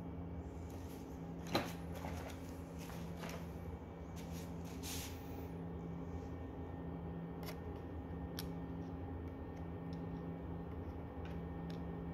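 A steady low machine hum, with a sharp click about a second and a half in, a brief rustle around five seconds, and a few lighter clicks later.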